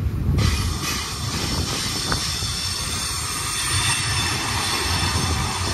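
Freight train cars rolling past on the rails: a steady rumble of steel wheels, joined about half a second in by a high hiss with faint wheel squeal.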